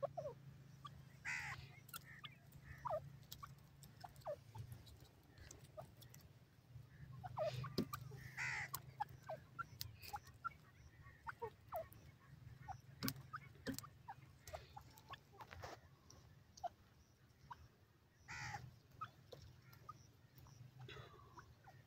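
Grey francolin giving soft, brief calls a few times, with faint scattered ticks and a low steady hum beneath.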